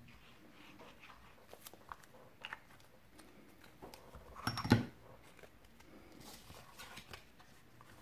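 Cardstock being handled on a craft mat: faint paper rustles and small taps, with one louder rustle and thump a little past halfway as the card is laid in and pressed down.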